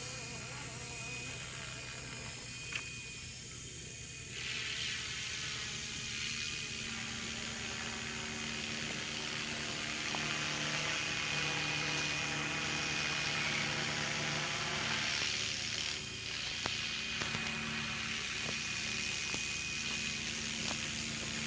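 FW450 electric RC helicopter flying overhead: a steady whine from its motor and rotor, over a haze of wind or air noise that swells for a while and eases off about three quarters of the way through.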